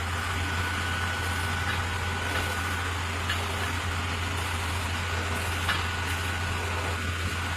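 Concrete pump truck's diesel engine running steadily, a low even hum with a faint steady high whine over it.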